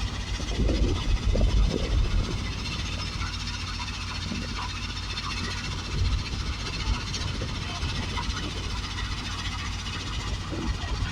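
Heavy machinery at a crusher plant running steadily, a low engine rumble under a hissing machine noise. A few louder knocks come about a second in and again about six seconds in.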